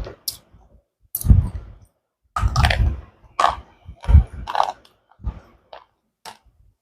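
Slate pencil being bitten and chewed: a string of separate dry crunches with short pauses between them.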